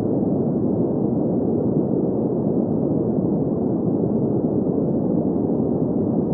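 Steady green noise: an even, unchanging rush centred in the low and middle range, muffled, with nothing bright on top.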